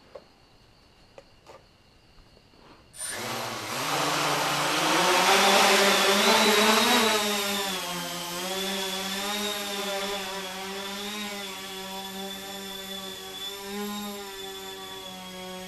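Hunter V-Tail 400 multirotor's four 1000kV brushless motors with 9-inch props starting up about three seconds in, running loudest as it lifts off. It then settles into a steady hum with a slightly wavering pitch while it hovers.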